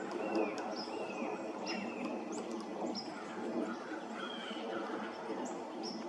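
Several birds calling in the woods, a quick run of short down-slurred notes and brief high chips, several a second, over a steady background hiss of ambient noise.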